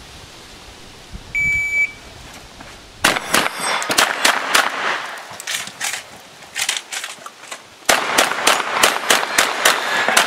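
A shot timer's start beep, one short high tone about a second and a half in, then a shotgun fired in quick strings of shots, with the fastest and loudest run starting about eight seconds in.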